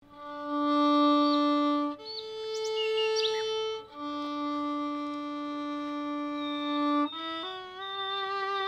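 Violin played with a bow: a slow melody of long held notes, each lasting two to three seconds, moving to shorter notes about seven seconds in.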